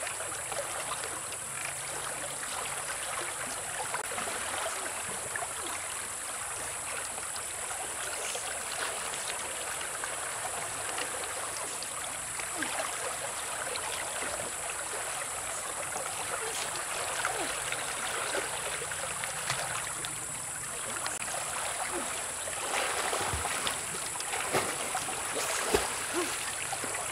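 Shallow river running over rocks, with water pouring and dripping off the paddles of a turning bamboo water wheel. A steady high hiss sits above the water, and a few splashes come near the end as a swimmer moves through the water.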